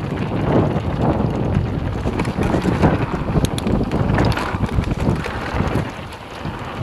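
Wind buffeting the microphone as a Scott e-mountain bike rolls fast over a dirt flow trail, with the rumble of the tyres and scattered clicks and rattles from the bike over bumps. The noise eases briefly near the end.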